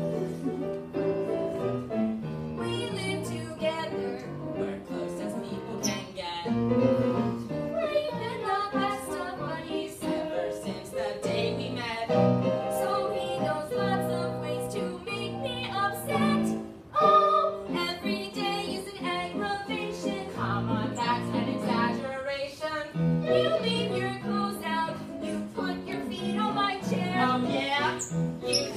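A song sung over piano accompaniment.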